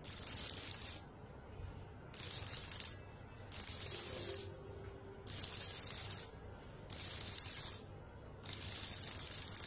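Vibration signal of an electronic disc-reading device for xóc đĩa, buzzing in six evenly spaced pulses, each just under a second long. By the device's code, six pulses report an even split of the four discs (sấp đôi, two up and two down).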